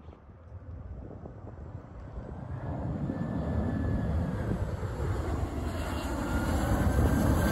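Boeing 737 jet airliner on final approach, the noise of its turbofan engines growing steadily louder as it comes nearer, with a faint whine above the low engine noise.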